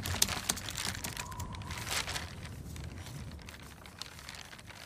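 Rustling and crinkling of paper as a sound effect: a dense run of crackles that is strongest in the first two seconds and then fades away.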